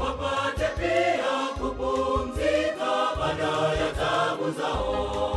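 Mixed choir singing a Swahili gospel song in harmony over an instrumental backing with a bass line and drum hits.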